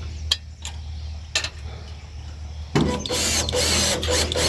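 A few light clicks, then about three seconds in a cordless drill runs for about a second and a half, driving a screw through a metal corner bracket.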